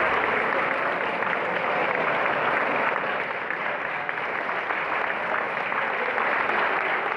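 Large audience applauding, a dense, steady clapping from many hands.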